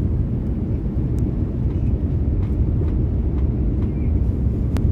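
Steady low rumble of a jet airliner's engines and rushing airflow, heard inside the cabin during the descent to land, with a short click near the end.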